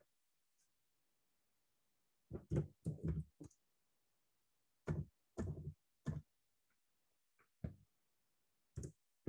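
Faint computer keyboard keystrokes and mouse clicks, in small clusters separated by pauses.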